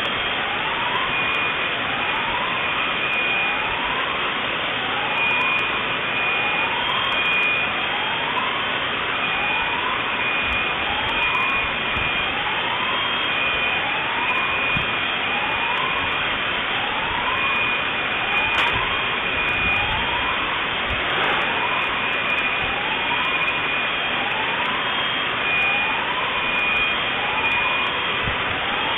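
Alarms sounding over a steady rushing hiss: a rising whoop repeats about once a second, and a high beeping tone comes and goes.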